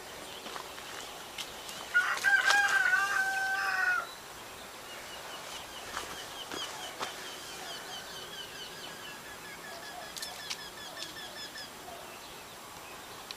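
A rooster crows once, a drawn-out call about two seconds in, the loudest sound here. Afterwards a small bird chirps in a long, evenly repeating series, with a few faint clicks.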